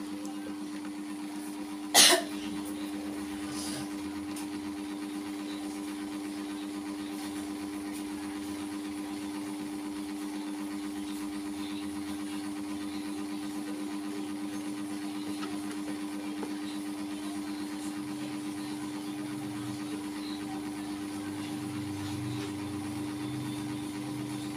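Steady low machine hum, with one sharp knock about two seconds in.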